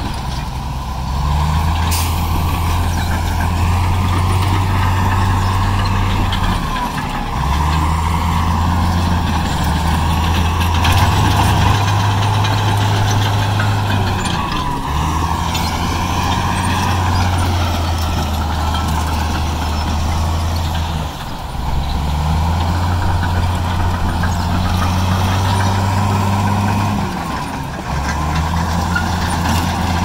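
Bulldozer's diesel engine working under load, its pitch dropping and rising in steps every six to seven seconds, with a steady higher whine throughout.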